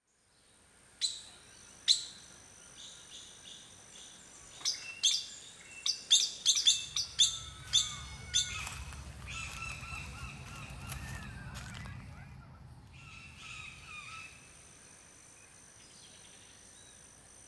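Wild birds calling: a run of sharp, short chirps, loudest in a quick cluster from about five to eight seconds in, then softer chirping, over two steady high thin tones.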